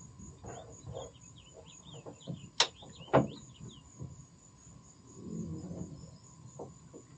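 Faint background of high, quick chirping and a steady pulsing high trill of insects, with a few sharp clicks and knocks, the loudest two about halfway through.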